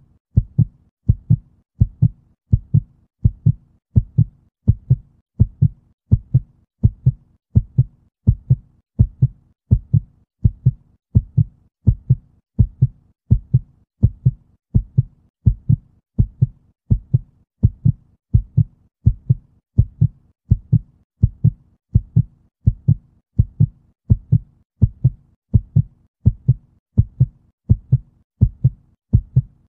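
Heartbeat, a steady slow lub-dub: paired low thumps repeating about once a second at an even pace.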